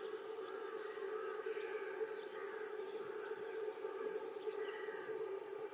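Twin WAG-5 electric locomotives humming steadily as they approach. Short bird chirps and a thin, steady high insect drone sound over the hum.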